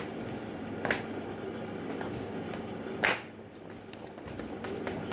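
Footsteps in flip-flops on a tile floor: a few separate sharp slaps and knocks, the loudest about three seconds in, over a steady low hum.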